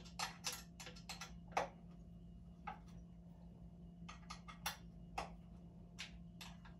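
Irregular metal clicks and clinks of a hand tool turning screws into a steel desk-frame side bracket, over a steady low hum.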